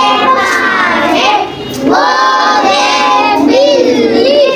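A child singing, in two long phrases with a short break about one and a half seconds in.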